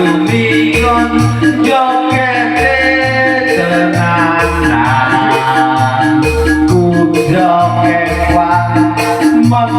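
Loud music played through a sound system: a heavy, repeating bass line with a melody over it.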